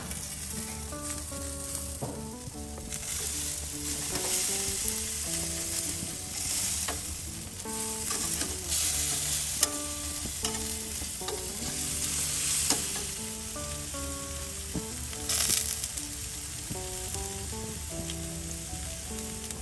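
Beef burger patties sizzling on the hot grates of a gas grill, a dense steady hiss full of small crackles and pops, with a few louder pops near the middle and again about three quarters through.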